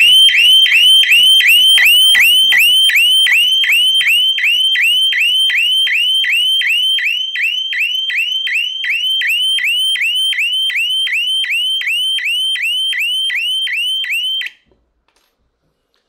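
Shop shutter burglar-alarm siren sounding through its built-in speaker: a loud, rapidly repeating electronic whoop, about two and a half a second. It has been set off because the shutter was raised and the device was not switched off with its key within 10–15 seconds. It cuts off suddenly near the end when it is switched off with its key.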